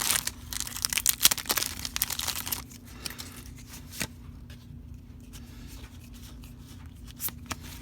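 A Pokémon booster pack's foil wrapper being torn open and crinkled, loudest over the first two and a half seconds, then quieter rustling and handling with an odd click.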